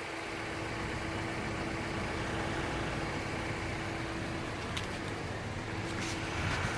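A car's engine running, heard from inside the cabin: a steady low rumble with a faint steady hum and a couple of light ticks.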